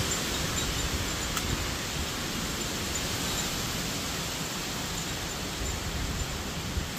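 Steady rush of heavy hurricane rain and wind through the trees.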